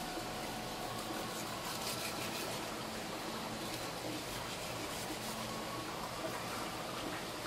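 Steady background noise with faint scraping of a kitchen knife blade drawn along a shark's backbone, filleting the flesh on a cutting board, a little stronger about two seconds in.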